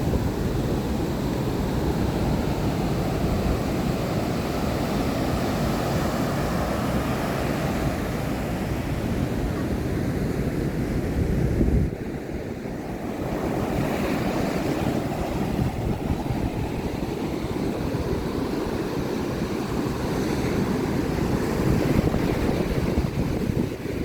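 Ocean surf washing onto a beach, a steady low rush with wind buffeting the microphone. The low rumble drops off suddenly about halfway through, then builds back up a second or two later.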